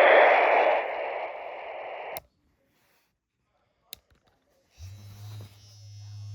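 Radio static hissing from a Motorola Minitor VI pager's speaker at the tail of a recorded dispatch message, cutting off sharply about two seconds in. A single click follows. Near the end the pager's vibrate motor buzzes steadily for about a second and a half.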